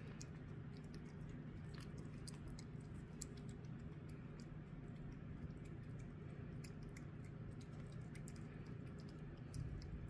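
Tabby cat licking a creamy lickable treat from a squeeze tube: quick, irregular wet licking clicks and smacks, faint, over a low steady hum.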